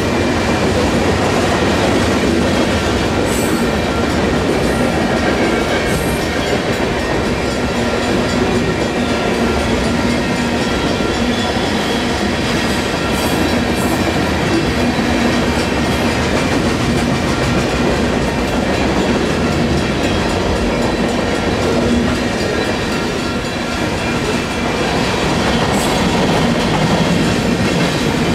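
Union Pacific manifest freight train's cars rolling past a grade crossing: a steady, loud wheel rumble with clickety-clack over the rails and a few brief high-pitched squeaks.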